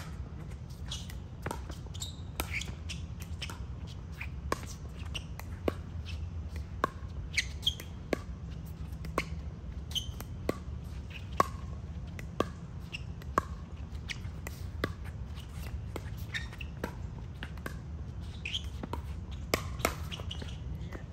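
Pickleball paddles hitting a plastic ball in rallies: sharp pops about once or twice a second, with short high squeaks of shoes on the court, over a steady low hum.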